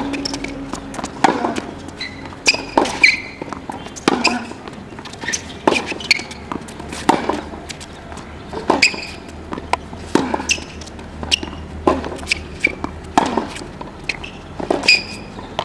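Tennis rally on a hard court: the ball is struck by rackets and bounces on the court, giving sharp pops and thuds about one or two a second.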